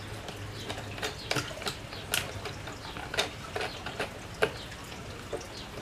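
Small hard-plastic drone accessories being handled and unpacked: a run of irregular light clicks and taps.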